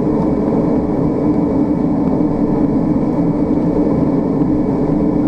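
Twin Pratt & Whitney PT6A-60A turboprop engines of a Beechcraft King Air 350 running steadily at low power during a slow taxi, heard from inside the cockpit as a continuous drone with a steady hum.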